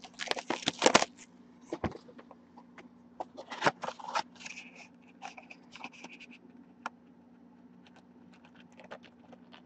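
Hands opening a 2019 Archives Signature Series trading-card box and sliding out its contents: a quick run of cardboard scraping and crinkling in the first second, another burst about three and a half seconds in, then scattered light ticks.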